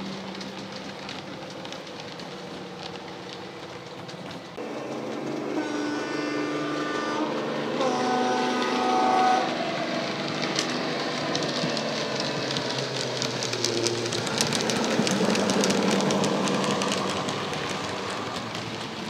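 Accurascale OO gauge Class 55 Deltic model's DCC sound decoder, with the Legomanbiffo sound file, playing the Deltic's engine through the model's speaker. About six seconds in it sounds a two-tone horn, a higher note and then a lower one. The engine sound then swells as the model approaches and passes, with the wheels clicking over the track.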